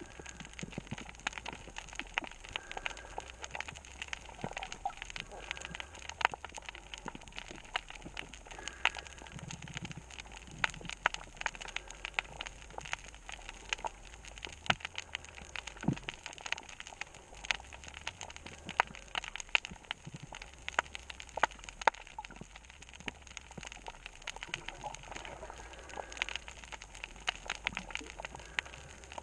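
Underwater reef crackle: a dense, irregular stream of sharp clicks and pops, the chorus typical of snapping shrimp on a coral reef.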